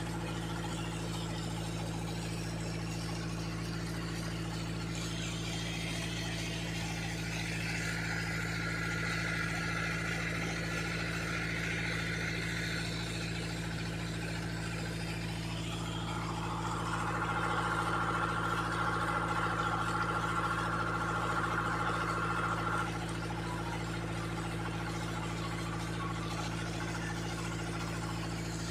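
Vehicle engine idling with a steady low hum. A higher-pitched sound swells over it twice, the second time louder, and stops suddenly about three-quarters of the way through.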